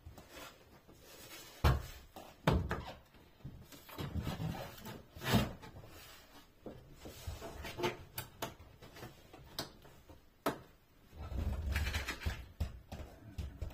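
Irregular knocks and taps on wood as a new base board is worked into a caravan's plywood wardrobe compartment, with a longer, low muffled sound about eleven seconds in.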